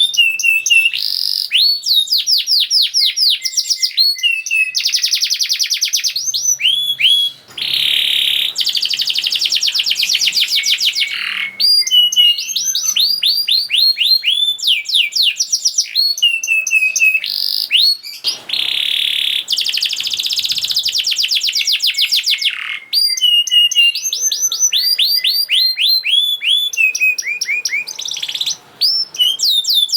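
Domestic canary singing a fast, continuous song: quick runs of repeated sweeping notes, broken by several longer, denser rolling trills of a few seconds each.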